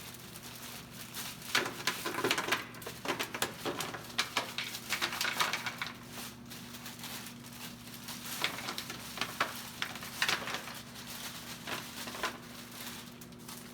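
Dry ice pellets tossed from a bag onto a car's tar-covered floor pan, landing in irregular light clicks and patter over a few seconds, with a steady low hum underneath.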